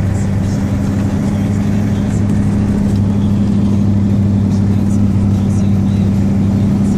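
Ford 7.3 IDI diesel engine with its soup bowl deleted, pulling the truck down the road, heard from inside the cab as a steady low drone that grows slightly louder.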